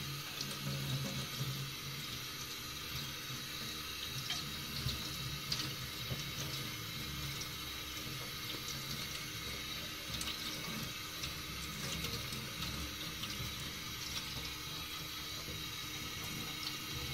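Tap water running steadily into a sink, with a few faint clicks.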